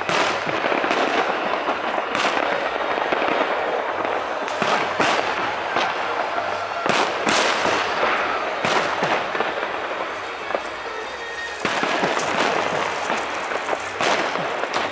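Aerial firework shells bursting in a continuous barrage: many sharp bangs over a dense, steady crackle.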